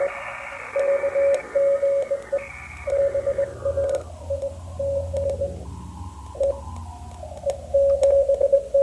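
Morse code (CW) tone keyed on and off from a Recent RS-978 transceiver's speaker, over receiver hiss. The hiss narrows and loses its upper range over the first few seconds as the receive bandwidth filter is tightened around the signal.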